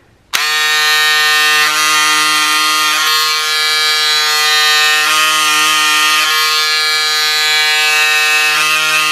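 Pink Power electric cordless scissors running under load as they cut through eight layers of folded cotton fabric. The small motor starts abruptly about half a second in and keeps up a loud, steady buzzing whine, dipping slightly now and then as the blades bite through the thick stack.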